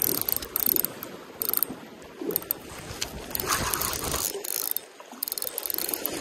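Spinning reel being cranked, its gears and bail whirring and clicking in uneven spells as line is wound in, over the hiss of rushing river water.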